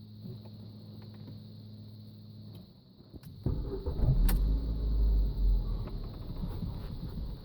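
Steering of a Ford Mondeo Mk4 being jerked back and forth at standstill, giving a few light knocks, the kind the owner suspects come from the steering rack. A steady low hum stops about two and a half seconds in. About a second later a much louder low rumble starts, with one sharp knock in it.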